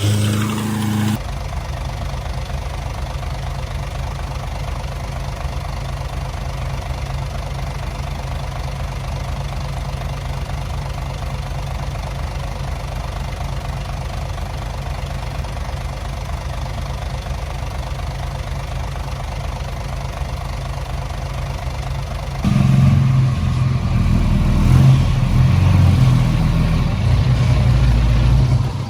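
Heavy diesel engine running steadily at low speed, coming in abruptly just over a second in, then louder and rougher from about 22 seconds in.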